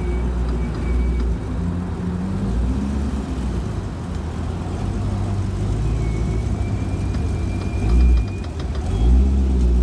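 A car engine idling with a steady low rumble, swelling briefly about eight seconds in and again about a second later.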